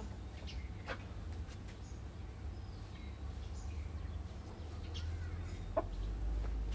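A few short, scattered clucks from a tiger chicken that is being handled, the clearest near the end, over a steady low rumble.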